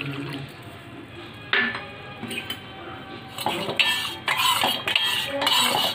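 A metal spoon stirring milky masala chai in a stainless steel pot, scraping and clinking against the sides in quick repeated strokes. The strokes come mostly in the second half.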